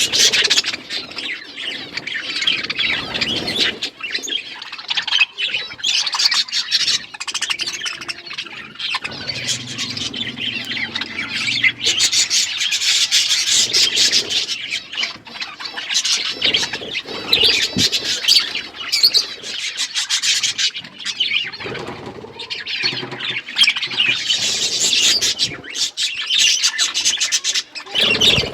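A flock of budgerigars chattering continuously, with a busy mix of warbles, chirps and squawks.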